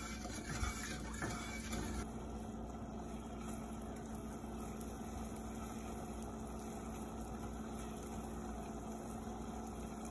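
A wooden spatula stirs sugar syrup in a stainless steel saucepan, with a few light scrapes against the pan. About two seconds in, this gives way to the syrup simmering with a steady low bubbling as it cooks toward one-string consistency.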